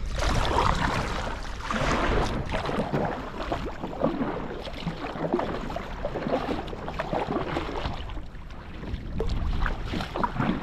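Water splashing and trickling around a sea kayak on the move, swelling and easing every couple of seconds, with a low wind rumble on the microphone.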